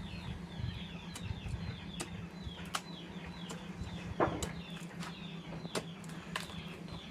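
Chickens calling, a busy stream of short falling chirps and clucks, broken by scattered sharp clicks and knocks, the loudest about four seconds in, over a steady low hum.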